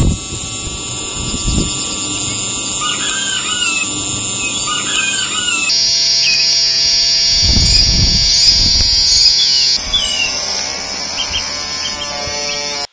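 Small electric motor of a toy post-hole auger running with a steady whine as the auger bores into sand. The whine changes abruptly about six seconds in and again about ten seconds in. Birds chirp in the background.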